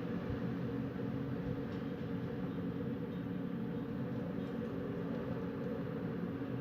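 Wind blowing steadily, a low even rumble that does not rise or fall.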